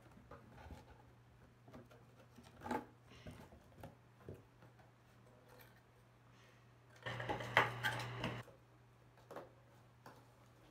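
Scissors cutting cardboard: scattered snips and crunches, with a louder stretch of cutting and cardboard handling about seven seconds in that lasts about a second and a half.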